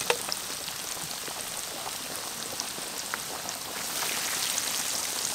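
Hot oil sizzling and crackling in a large wok as battered onion fritters deep-fry, a steady hiss full of small pops that grows louder about four seconds in as more batter goes into the oil. A sharp click sounds just after the start.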